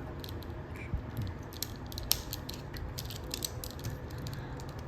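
Plastic Transformers action figure handled in the hands while its arm joint is moved, giving a scatter of small plastic clicks and rubbing, the sharpest click about two seconds in.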